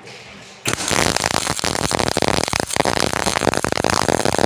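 MIG welding arc struck about a second in, crackling loud and irregular with a brief break near the middle. The wire feed speed is set too slow for the heat, so the arc does not give the steady frying sound of a correct setting.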